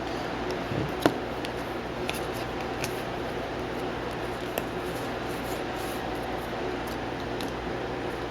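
Hockey trading cards being handled and sorted by hand: a sharp click about a second in, then scattered light ticks and taps, over a steady low hum.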